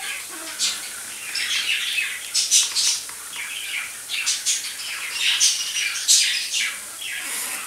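Sliced onions frying in hot oil in a non-stick pan: a steady sizzle with dense, irregular crackles and spitting pops.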